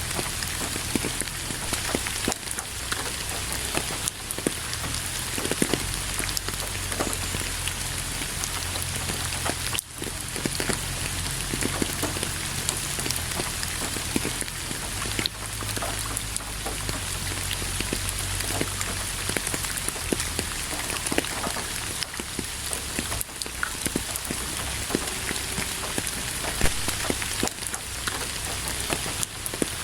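Steady rain falling on a surface, with a dense, even hiss and many individual drops striking close by. A low rumble runs underneath.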